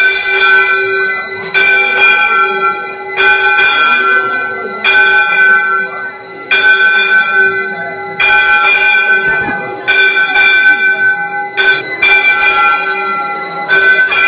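A temple bell struck over and over at a slow, even pace, roughly one stroke every one and a half to two seconds. Each stroke rings on in several clear tones that overlap the next.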